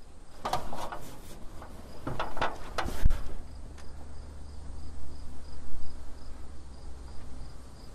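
An insect chirping steadily in short high pulses, about three a second. It sounds over a low rumble, with a few sharp knocks and clatters in the first three seconds.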